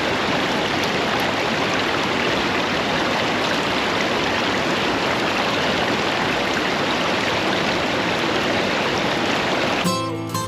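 Wild, fast-flowing stream water rushing steadily around a gold-panning sluice box. Near the end, acoustic guitar music cuts in.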